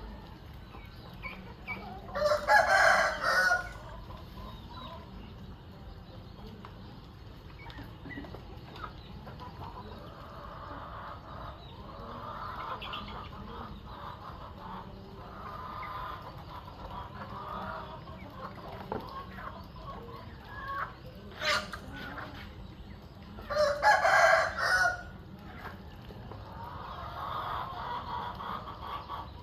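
A rooster crows twice, about twenty seconds apart, loud and clear, with fainter hen clucking in between.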